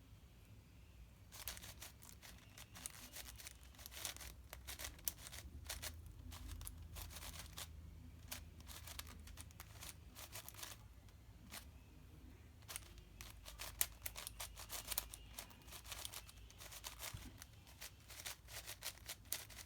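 Layers of a 7x7 speed cube, freshly lubricated with DNM-37, being turned quickly during a solve: rapid irregular clicking and clacking of the plastic pieces, starting about a second in.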